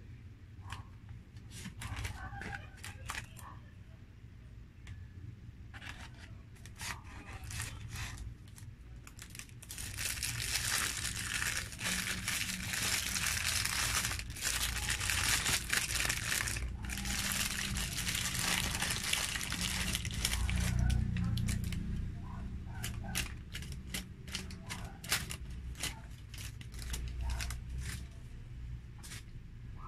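Paper food wrapper around a McDonald's rice serving being crinkled and torn open. The rustling is densest and loudest for several seconds about a third of the way in, with scattered small crackles and clicks of paper handling before and after.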